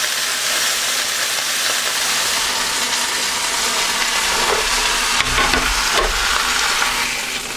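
Corned beef brisket searing in hot oil in a pan, with a steady, loud sizzle that eases off slightly at the very end.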